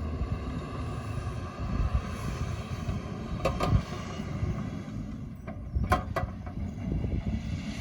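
Heavy digging equipment's diesel engine running, with a few sharp clanks, a pair about three and a half seconds in and another pair about six seconds in.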